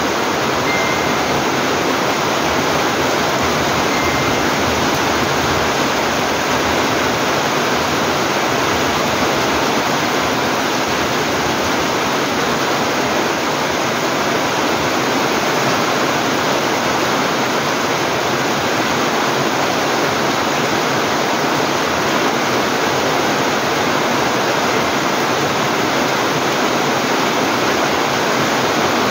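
Heavy typhoon rain pouring steadily on foliage and a roof: a loud, even hiss that doesn't let up.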